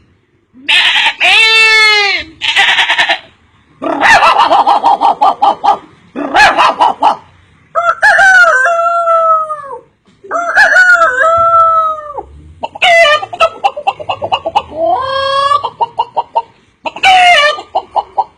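A man's voice imitating a rooster crowing and hens clucking: a series of about eight loud calls, some rising and falling in pitch like a crow, others broken into rapid clucking pulses, with short pauses between them.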